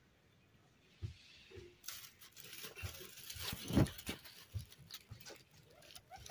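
Dry straw and grass kindling rustling and crackling as it is handled and lit with a match, with one sharper, louder knock a little past the middle.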